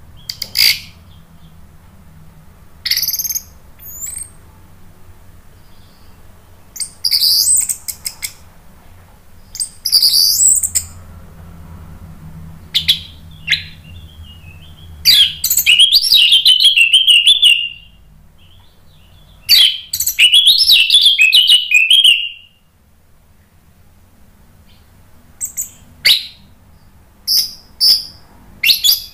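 Orange-headed thrush (anis merah) singing in separate phrases: short bursts of high chirps and whistles, and two longer warbling phrases in the middle, each about three seconds long.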